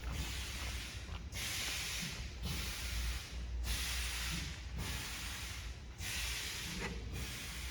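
Pneumatic can filling line running: a compressed-air hiss breaks off and starts again about once a second in an even machine cycle as its air-driven cylinders and valves work. A low steady hum runs underneath.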